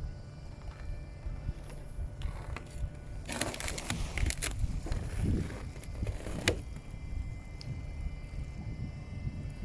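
Water splashing and sloshing for about three seconds, from a few seconds in, over a steady low rumble of wind on the microphone.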